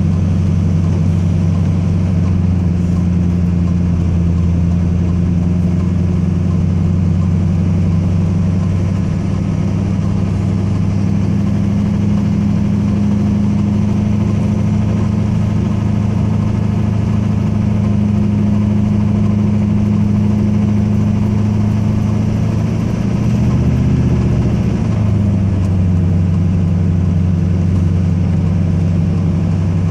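Duramax V8 turbodiesel pickup engine running steadily under heavy load, heard from inside the cab while towing a stuck semi truck up a steep grade. The engine note rises briefly a little past the middle, then settles back.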